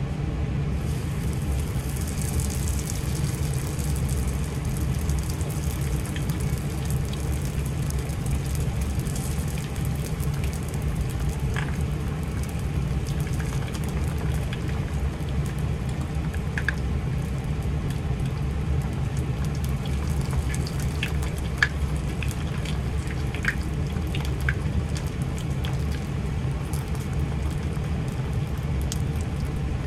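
Crab-stick and shiso spring roll shallow-frying in oil in a frying pan: a steady sizzle with scattered pops and crackles, over a constant low hum.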